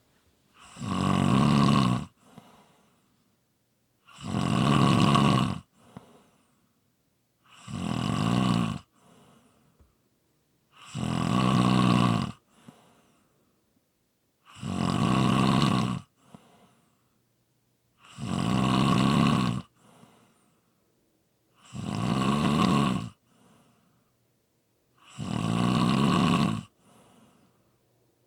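Loud snoring in a slow, steady rhythm: one long snore about every three and a half seconds, each followed by a short, faint breath, with near silence between.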